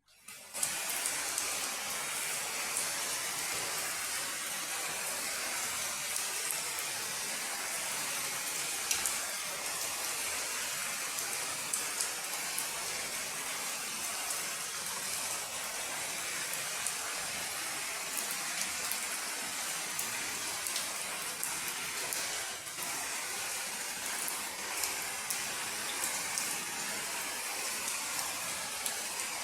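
Steady rain falling: a constant hiss with many small, sharp drop impacts scattered through it.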